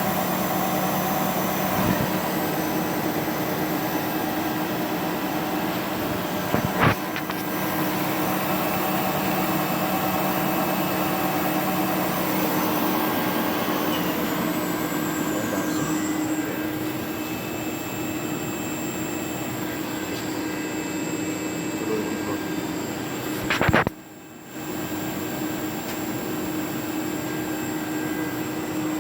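TRAK DPM-5 CNC vertical mill spindle running steadily at around 4,500 RPM, a constant hum with a high whine. A sharp click about seven seconds in, and another just before a brief drop in the sound near the end.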